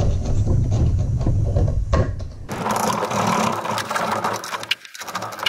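Low rubbing and knocking as a plastic housing is handled. About halfway in, a gritty scraping with many small clicks starts as a tool works inside the housing.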